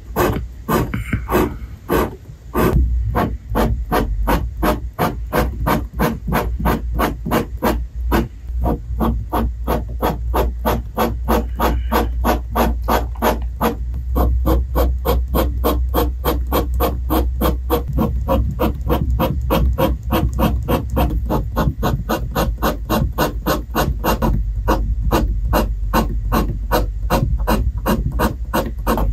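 Fountain pen nib scratching across paper in quick, short hatching strokes, an even rasp at about four strokes a second.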